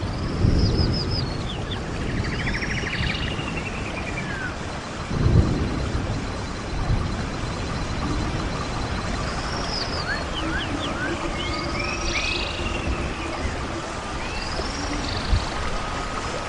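Small songbirds chirping and trilling in several bursts over a steady rushing background noise, with low thumps about half a second in and about five seconds in.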